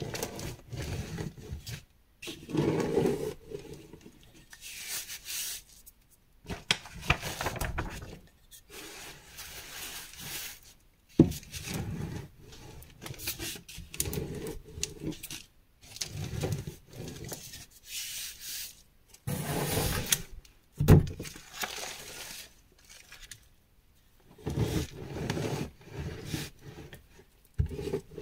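Rolling pin pushed back and forth over a layer of crushed gym chalk, crunching and grinding the chalk in strokes of a second or two with short pauses between. A couple of sharp snaps stand out, one about halfway and one about three-quarters through.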